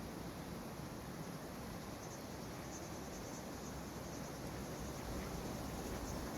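Steady wind noise with rumble on the microphone. From about two seconds in, a faint, pulsing insect trill sounds over it.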